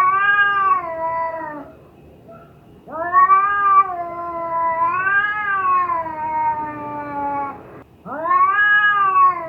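Female cat in heat caterwauling: three drawn-out yowls, the middle one long and wavering, each rising then sliding down in pitch.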